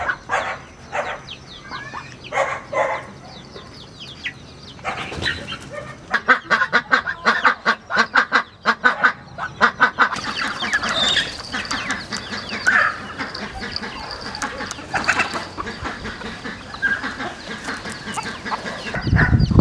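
Chickens clucking and calling, with runs of short calls in quick succession midway; a low rush of noise comes in near the end.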